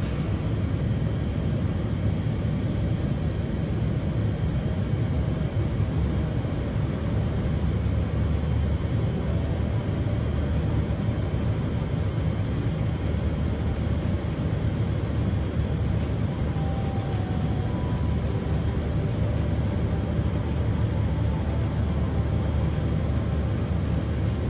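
Light aircraft's engine and propeller droning steadily in cruise, heard from inside the cabin.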